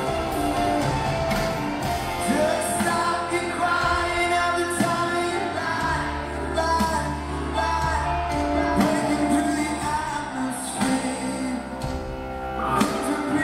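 Live pop-rock ballad: a male lead singer over a full band, recorded from the crowd in a large arena.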